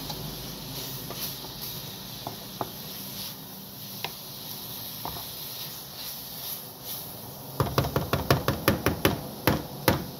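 Chopped cabbage, carrot and pak choi frying in a pan with a steady sizzle and the odd small click. Near the end, a quick run of sharp knocks, about six a second, as the utensil strikes and scrapes the pan while stirring the vegetables.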